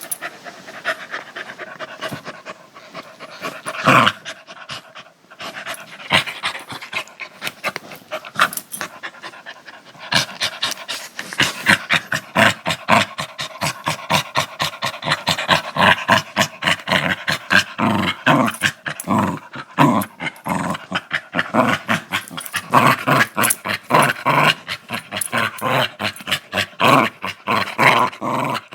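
Small dog growling in rapid breathy pulses, several a second, with one sharp louder burst about four seconds in; the growling grows denser and louder after about ten seconds.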